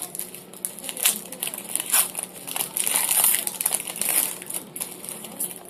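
A foil trading-card pack wrapper crinkling and crackling as it is torn open and handled. The crackle is densest from about two and a half to four and a half seconds in.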